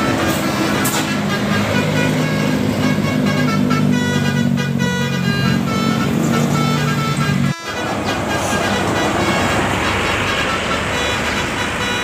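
Basuri telolet bus horn playing a tune of short tooting notes at changing pitches, over the running of a bus engine and passing traffic. The sound cuts off abruptly about seven and a half seconds in, then mostly road noise follows with the horn notes fainter.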